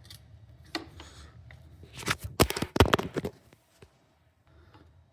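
A part being worked loose by hand on a motorcycle engine during teardown: scattered clicks, then a quick run of sharp clicks and clatter about two seconds in as it comes free.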